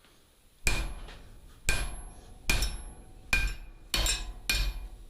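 Hand hammer striking steel on an anvil while forging blacksmith tongs: six sharp blows spaced under a second apart, each with a short metallic ring, starting less than a second in.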